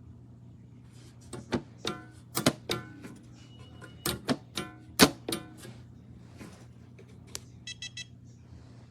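Sharp metallic clicks and clunks from a steel biometric pistol safe being handled and worked, about a dozen in quick succession with a brief ring to them. Near the end, a quick run of short electronic beeps from the safe's keypad.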